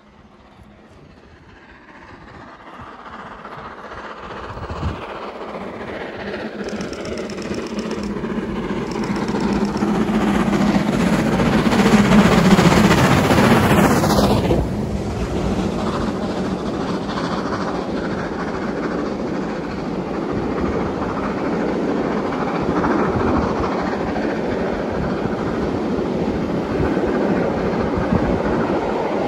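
LMS Jubilee class three-cylinder steam locomotive 45562 'Alberta' working hard with a passenger train. Its exhaust grows steadily louder as it approaches, is loudest about halfway through, and drops off suddenly as the engine passes beneath. Then the coaches run past with a steady rumble of wheels on the rails.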